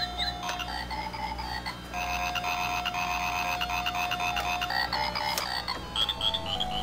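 Circuit-bent children's Animal Board toy keyboard playing its electronic frog sound through its small speaker: synthesized croaks and quick chirps over a beeping jingle, with one long held note in the middle.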